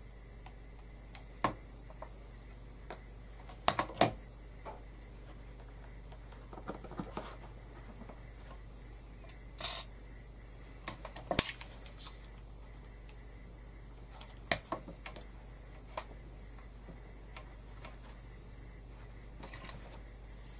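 Scattered light clicks and taps as small metal cog embellishments and a hot glue gun are picked up and set down on a plastic cutting mat, over a low steady hum.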